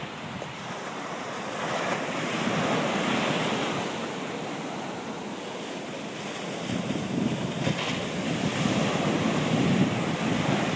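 Ocean surf washing onto the beach, swelling twice, about two seconds in and again about seven seconds in, with wind buffeting the microphone.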